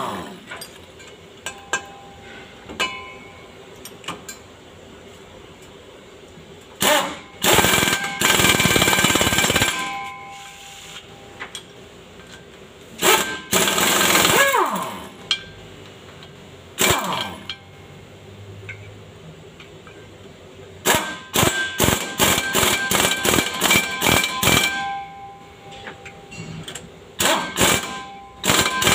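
Pneumatic impact wrench working bolts under a vehicle in rattling bursts of one to two seconds, its pitch falling as it winds down after some bursts. Near the end comes a fast run of metallic strikes that ring on.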